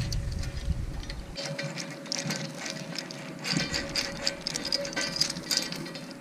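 Irregular light metallic clicks and clinks from handling galvanized anchor chain and a chain swivel as the swivel is fitted and secured.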